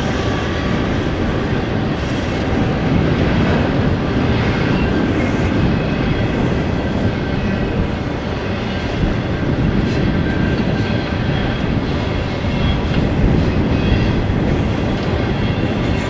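BNSF freight train rolling past close by: a steady loud rumble and rattle of wheels on the rails, with a few sharp clacks.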